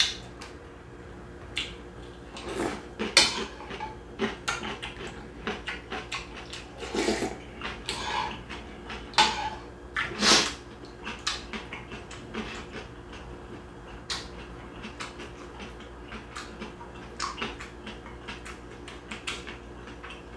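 A metal spoon clinks against a bowl in irregular short clicks, with a few brief slurps of hot soup taken from the spoon. A faint steady hum runs underneath.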